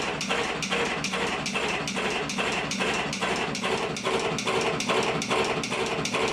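Automatic electric cigarette-filling machine running, clacking in an even rhythm about three times a second over a steady mechanical hum.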